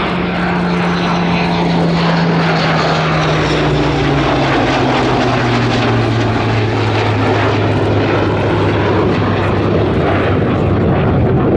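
A Hawker Hurricane Mk I's Rolls-Royce Merlin piston engine and a MiG-29's twin jet engines flying past together in formation. A low engine note falls slowly in pitch as they pass, over a steady roar.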